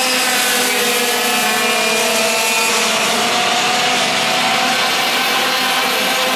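Several two-stroke racing kart engines running hard on track, their overlapping high-pitched whines slowly rising and falling as the karts go round.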